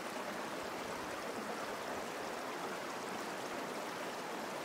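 Steady rush of a shallow creek running over rocks.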